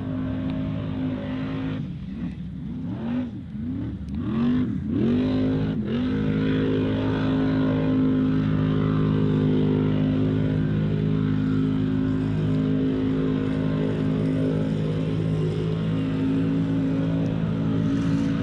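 Off-road racing buggy's engine revving hard in a series of quick blips for the first few seconds. About six seconds in, it settles into a loud, steady run at high revs under full throttle.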